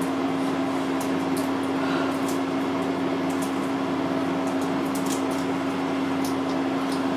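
Steady machine hum holding one low tone, with faint light ticks scattered through it.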